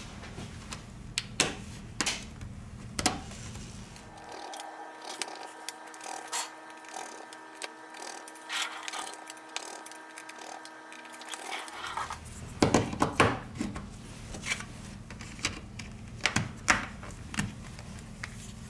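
Small plastic and metal clicks and taps of a smartphone being reassembled: the plastic midframe pressed into place and tiny screws driven with a precision screwdriver, with a cluster of louder clicks after the middle. A steady hum of several tones sounds from about four seconds in until about twelve.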